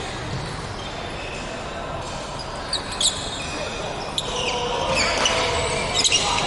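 Badminton doubles rally: sharp racket strikes on the shuttlecock and short shoe squeaks on the wooden court floor, coming thickest in the second half.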